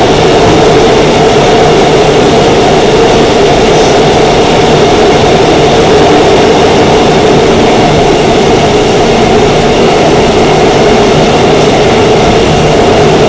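Korail Seoul Subway Line 3 electric multiple unit (3000 series) running at steady speed through a tunnel: a loud, steady rumble and rush of the running train with a steady hum over it.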